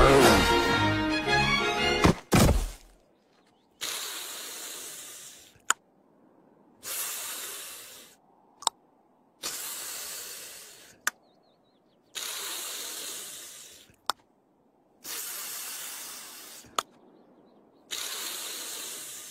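Orchestral cartoon chase music ends about two seconds in with a loud crash. Then a man in pain hisses through clenched teeth six times, about every three seconds. Each hiss fades out and is followed by a sharp click.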